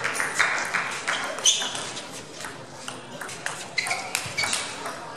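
Table tennis rally: the celluloid ball clicking sharply off the players' rubber-faced bats and the table in an irregular quick series, the loudest hit about a second and a half in, with a faint murmur of voices in a large hall.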